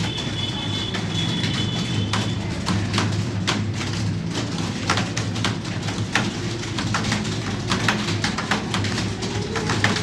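Computer keyboards clattering with fast, irregular keystrokes as people type, over a steady low hum.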